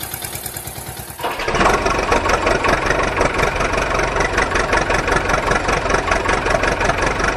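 A vehicle engine running with a regular throb, like an idle, that gets louder and fuller about a second and a half in.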